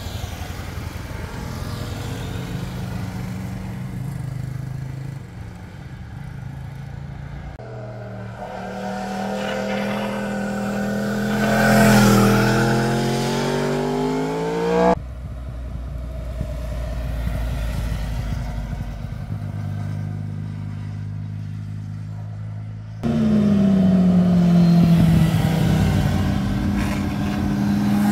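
Motorcycles riding past one after another through the bends, each engine rising and falling in pitch as it changes speed and goes by. The sound cuts abruptly between passes three times. The loudest passes come a little before halfway and in the last few seconds.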